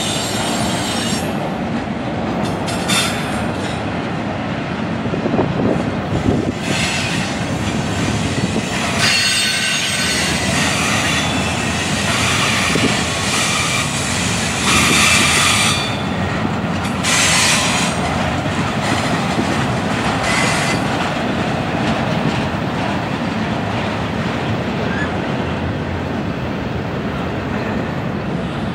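Double-stack intermodal freight train rolling past, its steel wheels on the rails making a steady rolling noise. Bursts of high wheel squeal come and go every few seconds during the first two-thirds, then the sound settles to the plain rolling noise.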